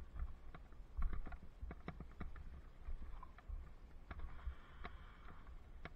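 Bicycle rolling over a bumpy dirt path, with irregular clicks and rattles from the bike and helmet-mounted camera over a low rumble of wind on the microphone.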